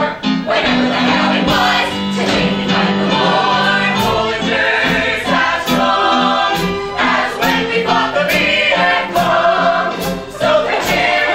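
A mixed ensemble of male and female voices singing a musical-theatre number together in harmony, with long held notes.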